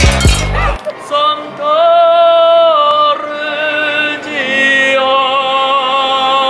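A man singing solo and unaccompanied in long held notes with a slight waver, like an operatic or Italian-style serenade from a gondolier. Under a second in, a burst of drumming on large metal stock pots cuts off just before the singing starts.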